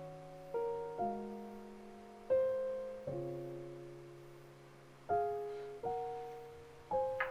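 Slow solo piano background music: chords and single notes struck every second or so, each ringing and fading before the next.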